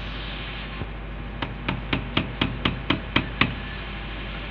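Nine sharp, evenly spaced knocks, about four a second, from a hand tool striking a bundle of white plastic pipes, over a steady low hum.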